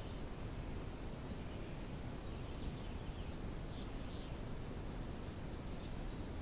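Quiet outdoor ambience: a steady low background noise with a few faint bird chirps, and light scratchy rubbing of fingers on a black ABS plastic ring as it is turned in the hands.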